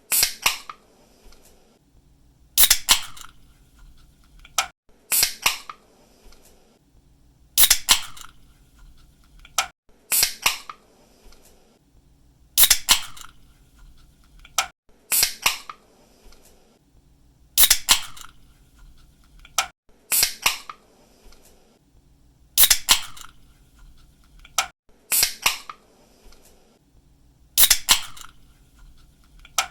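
Aluminium drink can being opened again and again, about every two and a half seconds: each time a small click of the pull tab, then a sharp snap with a brief fizz of escaping carbonation.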